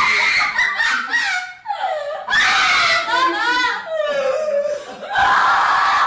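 Loud screams, three in all, with laughter between them.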